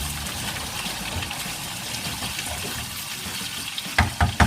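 Onion and green chilli frying in hot oil in a pan: a steady sizzle. Three sharp knocks close together near the end.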